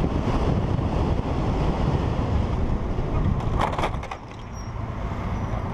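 Heavy wind buffeting on the microphone of a camera on a moving motorcycle, with road and vehicle noise beneath it. A short, sharper burst of noise comes about two thirds of the way through.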